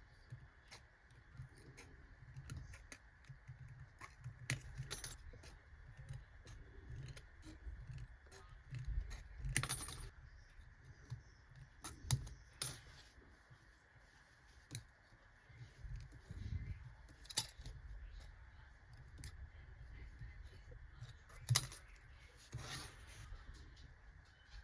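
Small metal parts clinking and tapping against each other and the bench: irregular sharp clicks, a few with a brief metallic ring.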